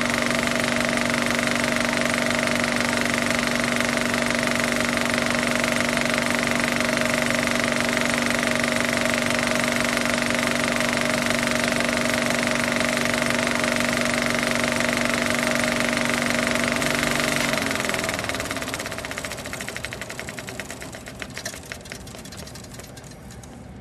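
FPV drone's electric motors and propellers running, a steady multi-tone whine with a noisy hiss; about eighteen seconds in the pitch drops as the motors wind down and the sound fades.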